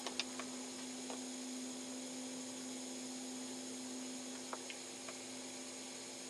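Boat motor running steadily while trolling: a low, even hum, with a few faint clicks in the first second.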